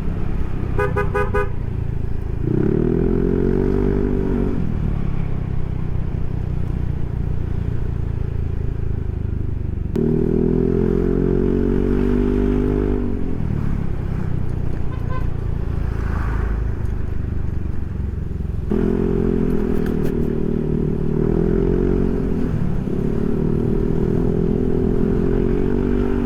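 Yamaha NMAX scooter's single-cylinder engine with a Proliner SR Neo Silent aftermarket exhaust, riding with steady road and wind rumble. Three times the engine note climbs under acceleration and then falls away as the throttle closes. A brief horn beep sounds about a second in.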